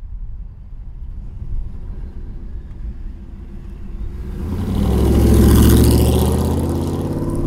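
1958 Ford F100 panel truck with a supercharged 5.4-litre Lightning V8 and stainless Magnaflow exhaust, driving up and passing close by. Its engine note swells from about four seconds in, is loudest around five to six seconds, then eases a little as it goes past.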